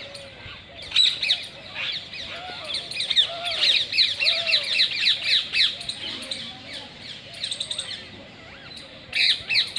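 Birds chirping: quick series of short, falling notes, busiest in the middle stretch, with softer arched calls lower down.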